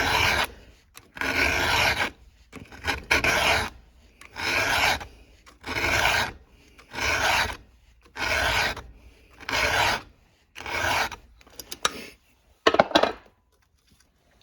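A 7/32-inch round file rasping across a chainsaw chain's cutter tooth in about nine even strokes, roughly one a second, sharpening the tooth. Near the end the strokes stop and a few light clicks follow.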